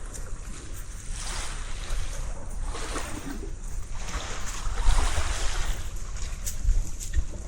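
Small waves washing in and out on a beach, swelling every second or two, with wind buffeting the microphone.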